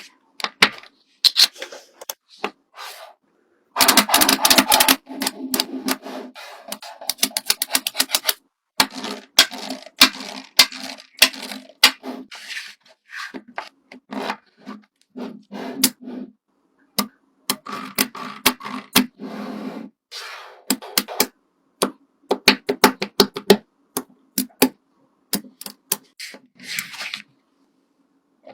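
Rapid sharp clicks and taps in irregular runs, mixed with short scraping and rubbing sounds.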